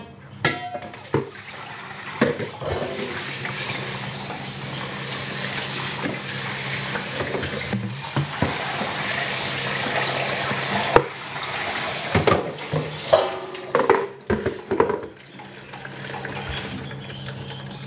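Kitchen tap running into a sink, a steady rush of water that stops with a click about eleven seconds in. A few knocks and clatters of dishes and pans follow.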